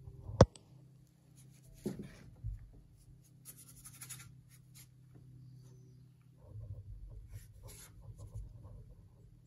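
Oil-paint brush scratching across a painting panel in short strokes, with a sharp click about half a second in and a softer knock near two seconds.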